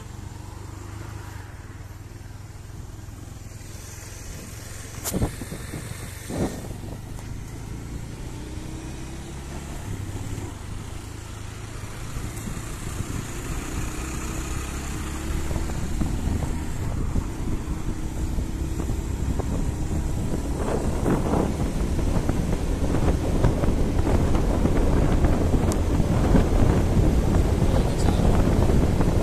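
Motorcycle engine running as the bike picks up speed, growing louder as it goes, with two sharp knocks about five and six and a half seconds in. In the last several seconds, at around 60 km/h, heavy wind rumble on the microphone joins the engine.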